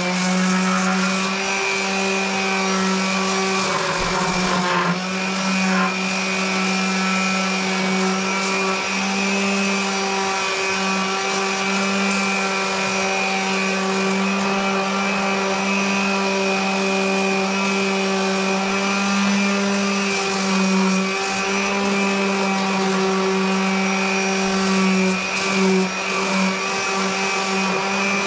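Electric power sander running at a steady speed, its motor whine holding one even pitch after spinning up.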